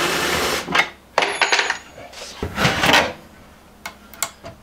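Wooden countertop being worked loose and lifted off its plywood cabinet: a scraping rub at the start, then a few sharp wooden knocks and clicks, another rub midway, and light knocks near the end.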